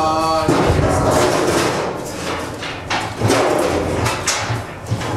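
Panels of a steel Puxin biogas digester mold being handled and fitted together: a string of knocks and thuds, irregularly spaced, with voices between them.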